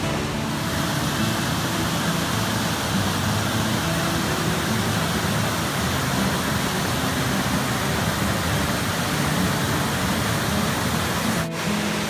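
Steady rush of water tumbling over rock ledges in a small cascading waterfall, with background music of low held notes playing over it. The sound briefly dips near the end.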